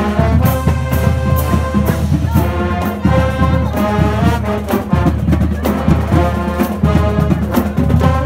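High school marching band brass section playing a tune live, trumpets and trombones among the horns, over a steady beat of percussion hits about twice a second.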